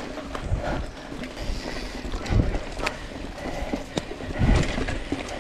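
Mountain bike rolling over a rough trail, with wind buffeting the microphone and sharp knocks and rattles from the bike over bumps, two of them standing out in the middle.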